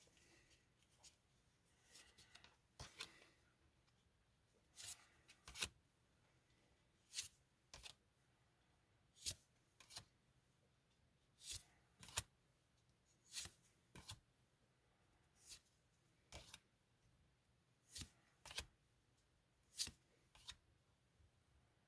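Pokémon trading cards from a freshly opened booster pack being slid one at a time from the back of the stack to the front. Short, crisp card-on-card swipes come every second or so, often in quick pairs.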